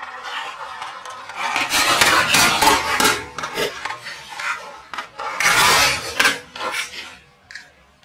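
Plastic toy auto-rickshaws cracking and crunching as a car tyre rolls over them. There are two loud bursts of snapping plastic, one about a second and a half in and another about five seconds in, followed by a few scattered clicks.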